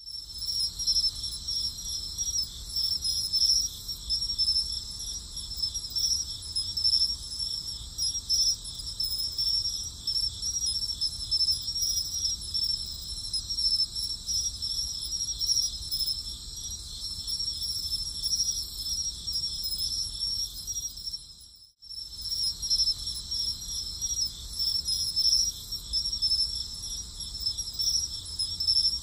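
Steady, high-pitched chorus of chirping crickets, cutting out briefly about 22 seconds in and then resuming.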